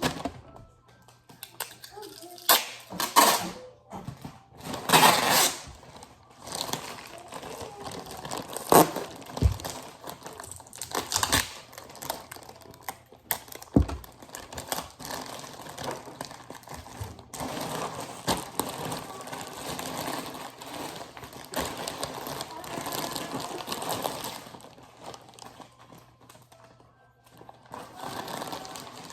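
Packaging being handled by hand: plastic and tape crinkling and rustling, with scattered knocks and taps.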